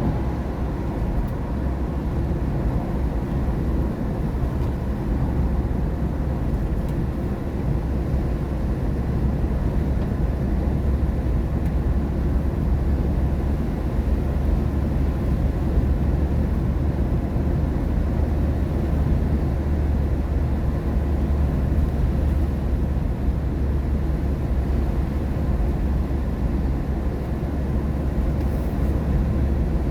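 Steady low rumble of tyres and engine inside a moving car's cabin, driving on a rain-wet road.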